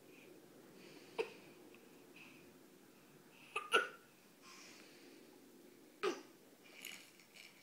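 A few short, sharp hiccups, about two seconds apart, the middle one a quick double, with faint soft noises between.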